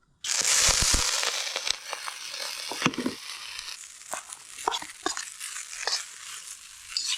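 Broccoli dropped into a hot oiled pan, starting a sudden loud sizzle that slowly dies down, with crackling pops and a few clicks from the pan and utensil.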